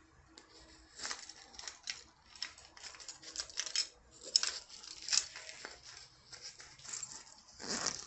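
Hand rustling and scraping against a nylon bag and its contents: irregular scratchy bursts, loudest about four seconds in and again just before the end.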